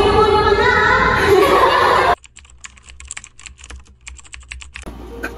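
A girl's voice speaking, then about two seconds in the voice stops and rapid, irregular typing clicks follow for about two and a half seconds.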